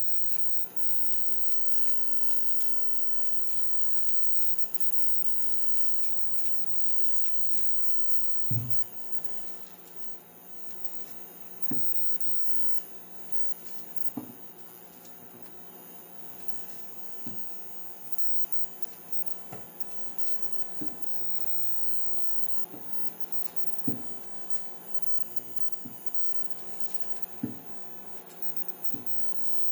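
A steady hum with short knocks scattered through it, about nine, every one to three seconds from about a third of the way in.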